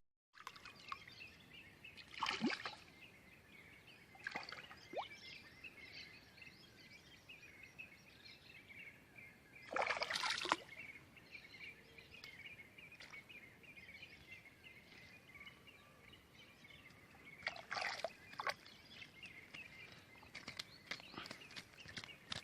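Songbirds singing and chattering continuously, with several brief noisy water sloshes, the loudest about ten seconds in.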